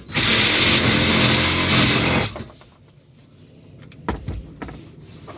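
A power tool cutting into an air-conditioner's metal runs loudly for about two seconds and then stops. A single sharp knock follows about four seconds in.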